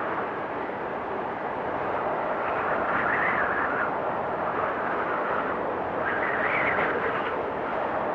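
Blizzard wind blowing steadily, rising into higher-pitched howling gusts about three seconds in and again about six seconds in.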